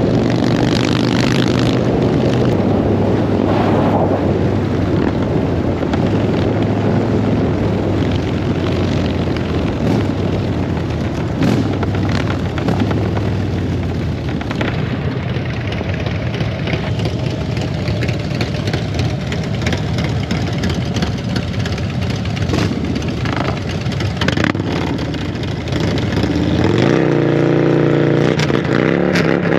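Motorcycle engine running while riding, holding a steady pitch, then growing louder about 27 seconds in as it picks up speed.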